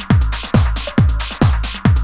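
Trance track playing: a four-on-the-floor kick drum, a little over two beats a second, each kick falling in pitch, with hi-hats on the off-beats.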